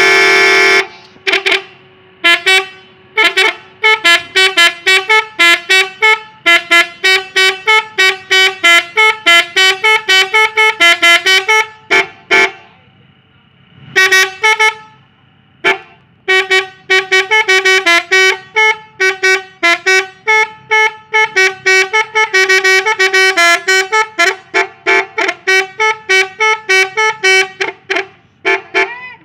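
Telolet horn, a multi-tone musical car horn fitted to a Toyota Avanza, playing a fast tune of short honked notes at several a second. It breaks off in a couple of short pauses around the middle.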